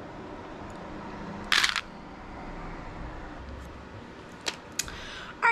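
A handful of small skull beads clattering briefly into a plastic basket of beads, about a second and a half in. Two faint clicks follow near the end.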